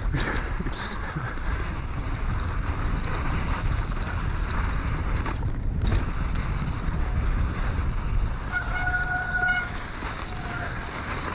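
Wind buffeting the microphone of a camera on an electric mountain bike riding downhill over snow, with a steady rumble of tyres and trail. About eight and a half seconds in, a brief high squeal lasts about a second.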